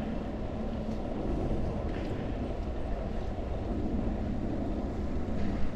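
Trek Domane 5 road bike rolling on asphalt: a steady rumble of tyres on the road mixed with rushing wind on the microphone.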